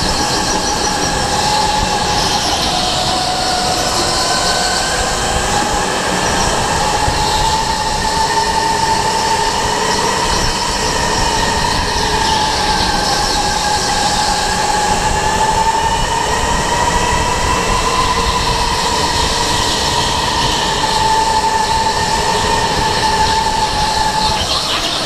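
Electric go-kart motor whining at speed, heard from onboard, its pitch drifting slowly up and down as the kart speeds up and slows through the corners, over a steady rushing noise.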